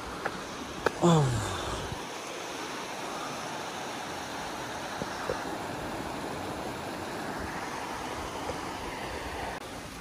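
Mountain stream running over rocks: a steady rush of flowing water. About a second in, a short sound falls in pitch and is the loudest thing, and a few light clicks sound near the start.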